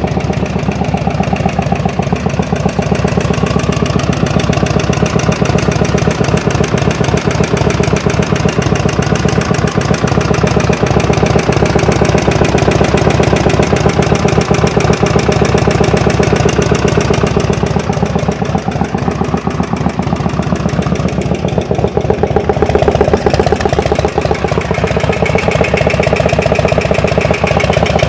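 Yamaha Road Star 1600's air-cooled V-twin running at idle just after starting, sounding nasty: a mystery engine noise that set in after the engine lost power with a loud bang.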